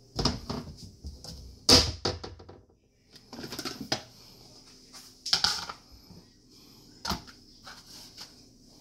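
Kitchen clatter: a string of short knocks and clinks from dishes and a bowl being handled and set down, the loudest about two seconds in, over a faint steady hum.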